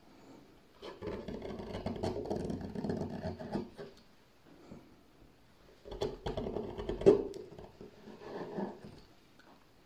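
Hand-forged swan neck gouge cutting across a wooden plank, each stroke a scraping slice that lifts a curled shaving: a long cut about a second in, a shorter one about six seconds in that ends with a sharp click, and a fainter third soon after.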